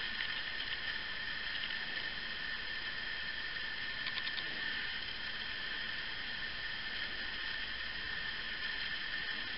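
Steady hiss of the recording's background noise with a faint high whine, and a few faint ticks just after the start and again about four seconds in.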